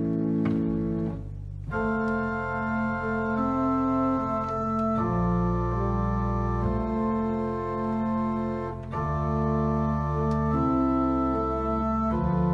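Pipe organ playing slow, held chords over deep pedal bass notes, the harmony changing every second or two. There is a short break between phrases about a second in.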